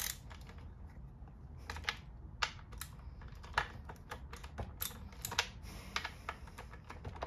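Irregular light clicks and clacks of metal tools and parts being handled while tightening the bar and chain of a chainsaw.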